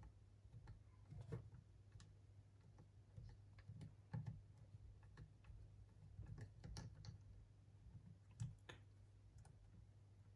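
Faint, irregular clicks and light taps of small parts of a cassette deck's tape transport being handled with hand tools while one is unscrewed and realigned.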